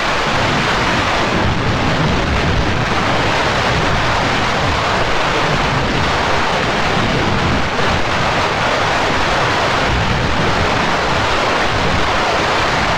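Steady, loud rushing roar of noise with no separate bangs, like a heavy downpour or a rumble: digitally effects-processed logo audio.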